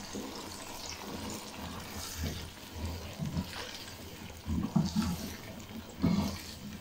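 Cut turnip pieces tipped into a pot of frying masala and stirred in with a wooden spoon: a steady hiss of the pot cooking, with irregular knocks and scrapes of the spoon in the second half.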